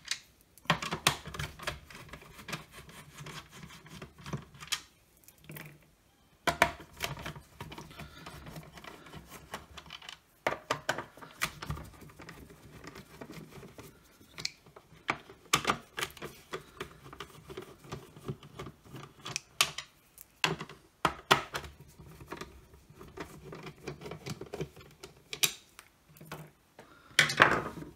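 Hand screwdriver backing screws out of the plastic top cover of a Milwaukee M18 compact hand vacuum, with irregular clicks and taps and some scratching and rubbing as the tool, the screws and the plastic housing are handled.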